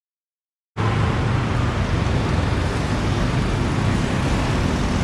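Dead silence, then about three-quarters of a second in, steady road traffic noise cuts in abruptly, with a strong deep rumble.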